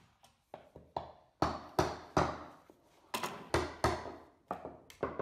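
A run of about a dozen sharp knocks and taps, wood and clamp parts striking as bar clamps are fitted and tightened around a glued-up dovetailed wooden box; the knocks are loudest and come quickest in the middle.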